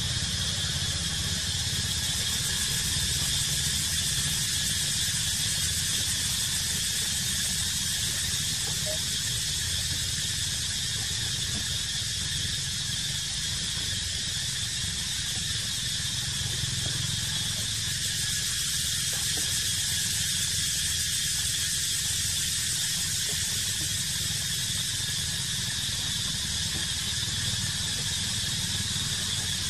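Steady, unchanging high-pitched insect drone in the trees, with a low rumble underneath.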